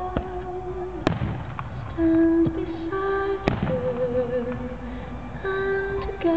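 Fireworks bursting, a handful of sharp bangs a second or more apart, the loudest about a second in and about halfway through, over slow music with long held notes.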